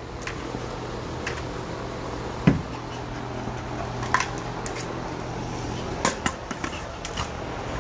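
A dog nosing a large rubber ball along artificial turf: scattered light taps and knocks, with one louder thump about two and a half seconds in, over a steady low hum.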